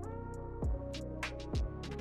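Background music: a hip-hop beat with sustained chords, quick high hi-hat ticks, and two deep bass notes that slide down in pitch.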